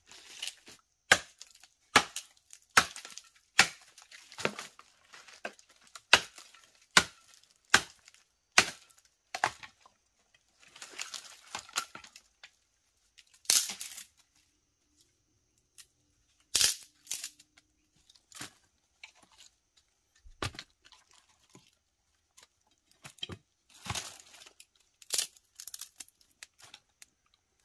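A large knife chopping and splitting a stick of wood. First come sharp strikes about every 0.8 s, then a stretch of scraping and splitting, then a few scattered cracks and knocks.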